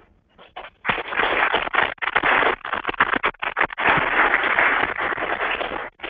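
Loud rustling and scraping handling noise on a head-worn microphone as it is being taken off. It starts about a second in and stops just before the end.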